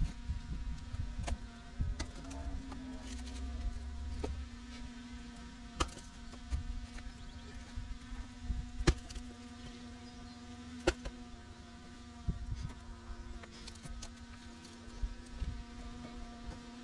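Excavator engine running with a steady buzzing hum, broken by scattered sharp knocks and cracks, the loudest about nine seconds in.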